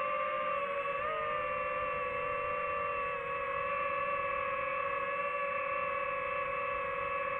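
DJI FPV drone's motors and propellers whining at a steady pitch as it cruises, with a brief dip and rise in pitch about a second in.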